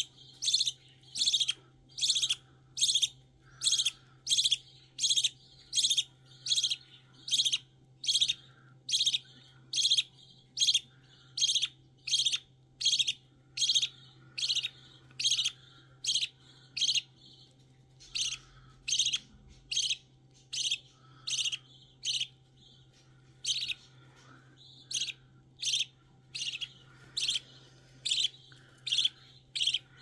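Eleven-day-old budgerigar chick giving short, rapid, regularly repeated food-begging chirps, about one and a half a second, as it is spoon-fed, with a couple of brief pauses.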